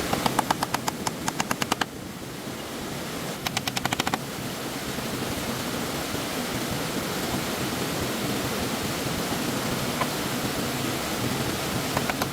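Stream water rushing steadily. Twice it is broken by a fast rattle of sharp ticks, about a dozen a second, first for about a second and a half near the start and again briefly a little after three seconds in, with another rattle starting near the end.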